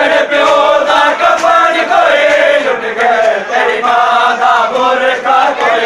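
A group of men chanting a noha in unison, with rhythmic slaps of hands on bare chests (matam) about twice a second.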